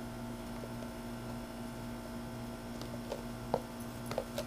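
A steady low hum, with a few faint clicks near the end.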